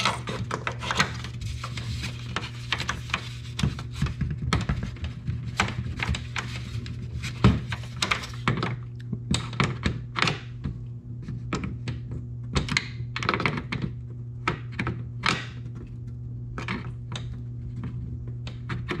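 Irregular sharp plastic clicks and knocks as small LED marker lights are pressed and clamped by hand into a plastic grille's honeycomb openings.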